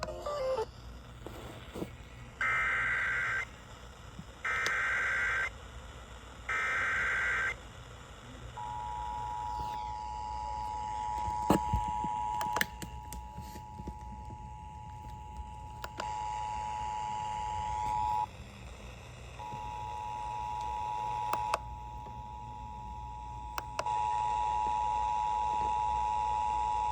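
Emergency Alert System header and attention signal: three one-second bursts of screeching SAME data tones, then the two-tone attention signal, two steady notes sounded together, running about ten seconds, breaking off briefly, then sounding again for about eight seconds.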